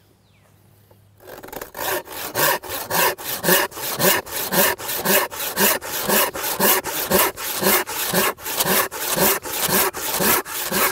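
Sharp hand-filed handsaw cutting through a block of hard white oak: even back-and-forth rasping strokes, about two a second, starting a little over a second in.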